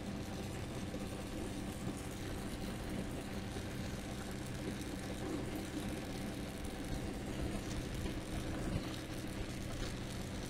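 Gas torch flame hissing at a joint as an aluminium brazing rod is fed in, over a steady low machine hum that does not change.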